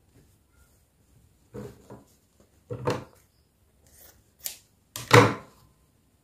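Cotton fabric pieces being handled and laid flat on a sewing table: a few short rustles and knocks, the loudest about five seconds in.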